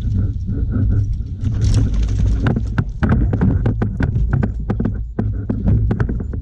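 Irregular knocks and clatter on a kayak, thickest from about two and a half seconds in, over a steady low rumble.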